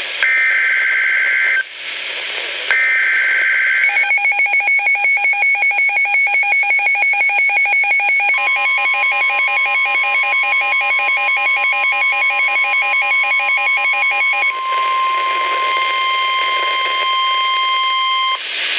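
NOAA Weather Radio EAS alert: two short bursts of warbling digital SAME header data tones, then rapid electronic beeping, then the steady 1050 Hz weather alert tone. The alert tone starts under the beeping, runs on alone after the beeping stops, and cuts off shortly before the end, marking a warning about to be read.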